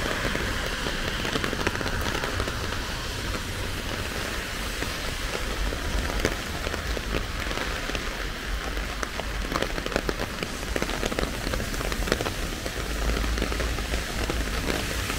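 Heavy rain falling, with many sharp drop hits close by over a steady hiss.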